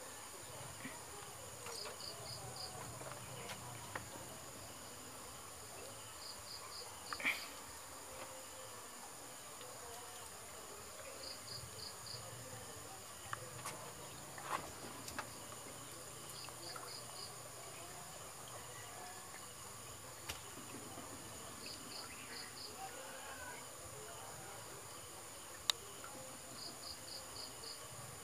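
Insects calling: a steady high drone, with a short chirp of three to five quick pulses repeating about every five seconds. A few sharp clicks and knocks are the loudest sounds, one about seven seconds in and one near the end.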